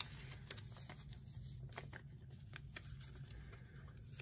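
Faint rustling and light ticks of a paper pattern and stiffened, iron-on-interfaced fabric being handled and lined up, over a low steady hum.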